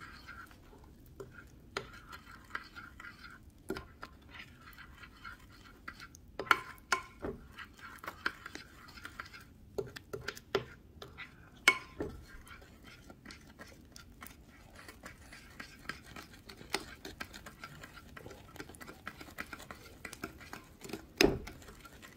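A utensil stirring baking soda into hot microwave caramel in a bowl, scraping and clicking against the bowl at irregular intervals, with a few sharper knocks. The baking soda is making the caramel foam up.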